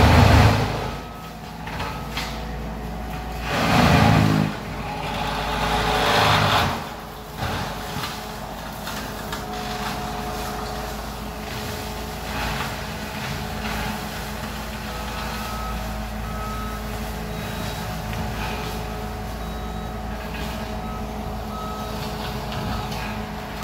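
Alpha Wolf XP brush cutter mulching: a heavy machine's engine drone with loud surges at the start and again about four and six seconds in, then steady running. Short high beeps of a backup alarm sound on and off in the second half.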